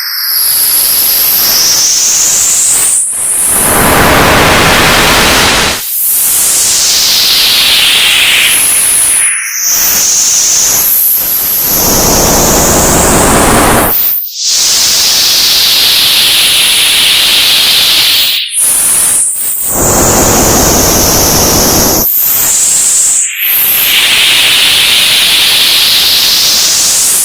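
Old television static: a loud, steady hiss with whistling tones that sweep up and down in pitch. It cuts out briefly every few seconds.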